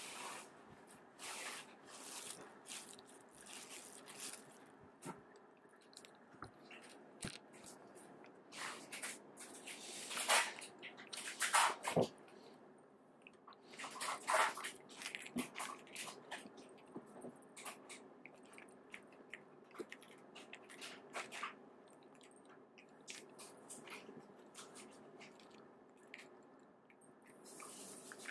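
A cat crunching and chewing small dry treats picked up off a carpet, with irregular crisp crunches throughout. Several louder noisy bursts come about ten to fifteen seconds in.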